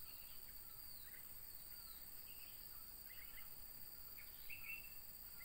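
Faint outdoor ambience of a steady, high-pitched insect chorus, with scattered short bird chirps: a few falling chirps in the first two seconds and a brighter one at about four and a half seconds.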